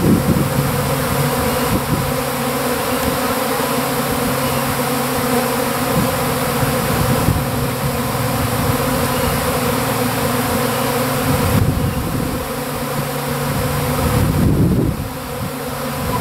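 Honeybee swarm in flight: thousands of bees' wingbeats blending into one loud, steady buzzing hum.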